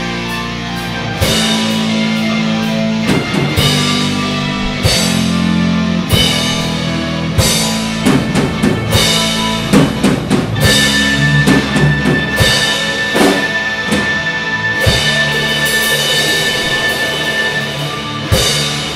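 Live rock band playing loud on stage: drum kit, electric guitars and keyboard, with a high note held for several seconds in the middle. The music stops right at the end.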